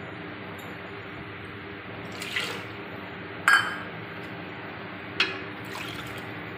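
Liquid gram-flour and yogurt kadhi batter in an aluminium pot, over a steady background hum. A few short knocks sound against the metal pot, the loudest a ringing clank about halfway through. Near the end, water is poured into the batter.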